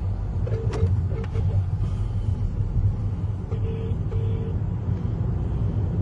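Steady road and engine rumble inside a moving Kia car, with a phone on speaker playing the double 'ring-ring' ringback tone of an outgoing call, heard about a second in and again a few seconds later.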